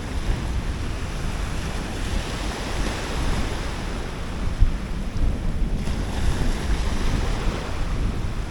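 Wind buffeting the microphone over a steady rush of surf, with one brief thump a little past the middle.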